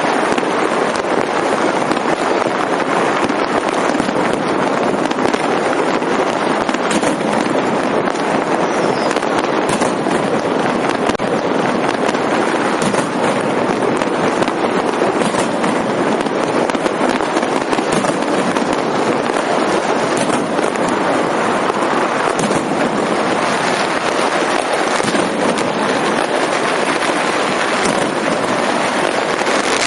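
Many fireworks and firecrackers going off at once: a dense, unbroken crackle with sharper bangs scattered through it.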